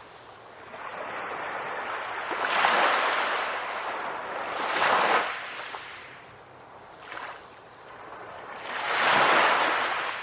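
Ocean waves breaking and washing in on the shore: three surges of surf, each swelling up and ebbing away, about 3 s, 5 s and 9 s in.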